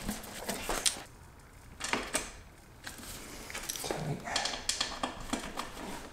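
Scattered light clicks and knocks of hard parts being handled as a black end cap is fitted onto a motorcycle's muffler.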